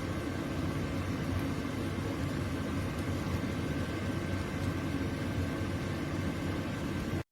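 Tower T17038 air fryer oven running while cooking: a steady fan whir with a low hum and a faint high whine. It stops abruptly just before the end.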